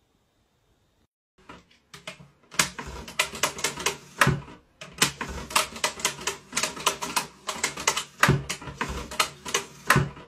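Rapid, irregular clicking of the metal toggle switches on a wooden 'useless box' as they are flicked on and off, with a few heavier knocks.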